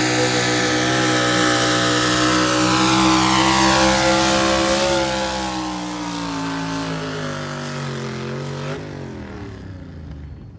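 Super stock four-wheel-drive pulling truck's engine at full throttle hauling a pulling sled, a loud high-revving drone. About five seconds in the revs start to sink slowly as the sled's load builds, and near nine seconds in the engine blips and then fades as it comes off the throttle.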